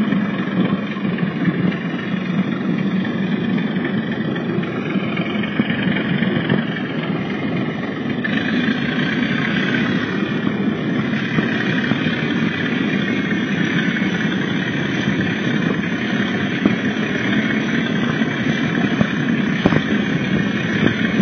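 Model Class 37 diesel locomotive's DCC sound decoder playing an SWD Class 37 engine sound file through an EM1 speaker: a steady diesel engine note, with a higher whine joining about eight seconds in.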